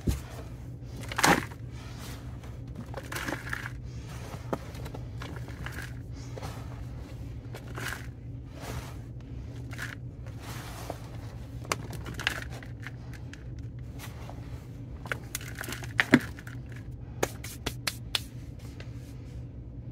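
Potting soil being scooped and poured into a plant pot by hand: repeated scraping and rustling of soil with a few sharper knocks, the loudest about a second in and about 16 seconds in. A steady low hum runs underneath.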